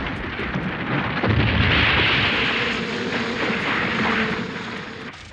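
Loud rumbling, crashing roar of a cartoon sound effect, swelling about a second in and dying away near the end.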